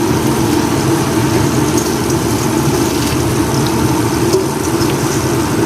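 Steady, loud mechanical hum like a running motor, with a constant mid-pitched tone and a low rumble, and a few faint small clicks over it.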